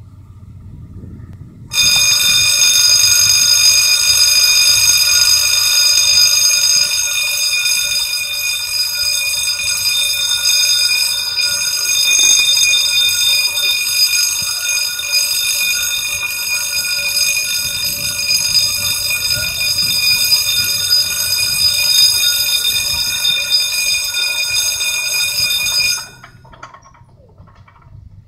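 Old-style electric warning bell of a Belgian level crossing ringing as the crossing closes: a loud, steady, continuous ring that starts abruptly about two seconds in and cuts off suddenly after about 24 seconds.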